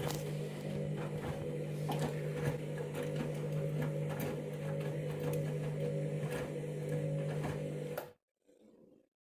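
Candy washing machine running its KG detector load-sensing stage with a small load: a steady motor hum with scattered clicks and knocks from the drum. The sound cuts off abruptly about eight seconds in.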